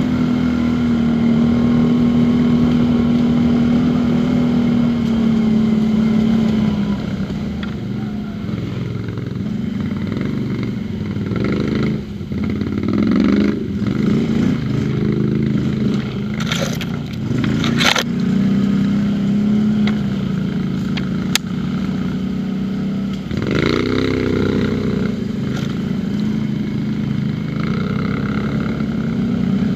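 Quad bike (ATV) engine running on an off-road trail, holding a steady note, then revving up and down several times around the middle and once more later on. A few sharp knocks cut through near the middle.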